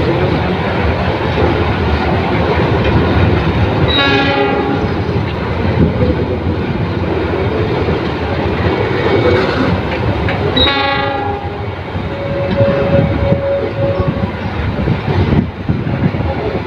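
Loaded flat wagons of a freight train rolling across a railway bridge, with a steady rumble and clatter of wheels on rail. Twice, about 4 and 11 seconds in, a horn sounds a short blast of about a second. A thin steady whine is heard for a moment near 13 seconds.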